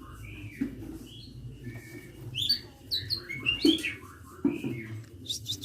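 A sunbird (kept as a 'kolibri') chirping a string of high, quick notes that glide up and down, with a fast run of short notes near the end. A steady low hum sits underneath.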